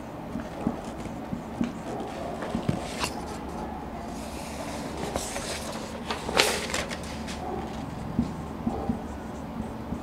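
Marker pen tapping and scratching on a whiteboard in short strokes as words are written. A sheet of paper rustles about four to seven seconds in, loudest near six and a half seconds.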